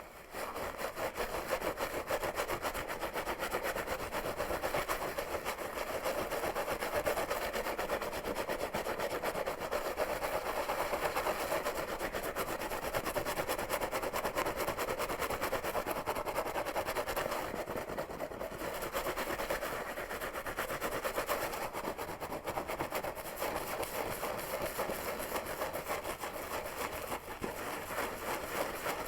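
Fingers scratching rapidly and hard through hair on a scalp close to the microphone: a dense, continuous rasping with no let-up.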